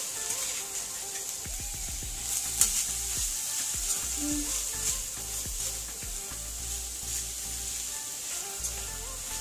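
Omena (small dried lake sardines) sizzling steadily as they fry in hot oil in a pan, stirred with a wire-mesh skimmer that taps against the pan a few times.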